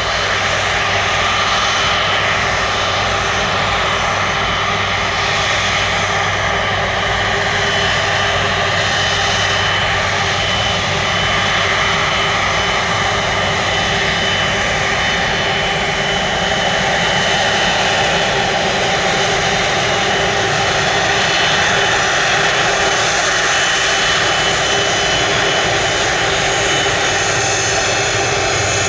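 Jet airliner engines running: a steady, loud rush of engine noise with a thin high whine over it.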